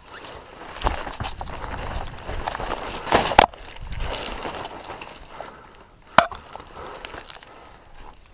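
Footsteps and rustling through dry brush close to a body-worn camera, with low thumps on the microphone and a single sharp crack about six seconds in.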